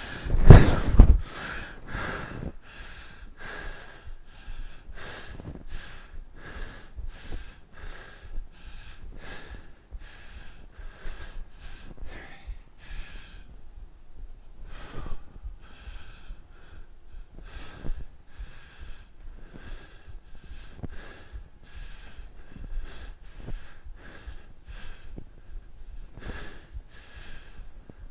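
A man breathing hard in quick, even puffs, about two a second, from the exertion of split squats. A few heavy low thumps come about a second in.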